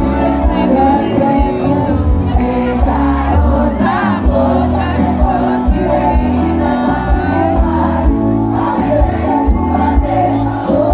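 Live sertanejo concert music from a band, with a steady beat and singing, and a crowd's voices joining in.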